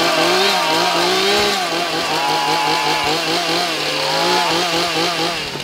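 Buzzing small-engine sound revving up and down, like a chainsaw, over a steady low drone; it cuts off abruptly at the end.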